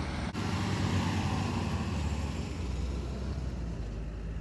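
Motor vehicle engine running with road noise: a steady low rumble under a wide hiss, with a faint falling whine.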